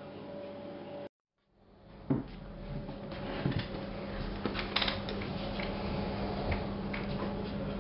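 Small clicks, taps and knocks of objects being handled at a desk, over a steady electrical hum. The sound drops out completely for about half a second a second in, then fades back.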